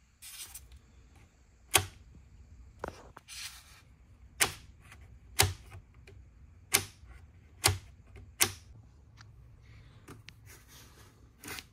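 A 3D-printed plastic slide-out bracket holding a monitor's remote control board, pushed in and out by hand, clicking sharply into place about seven times with softer sliding scrapes between.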